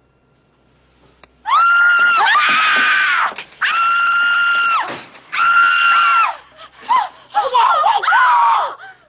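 Women screaming in fright. After a second or so of quiet come several long, loud, high screams, at times two voices overlapping, and then shorter screams that fall in pitch near the end.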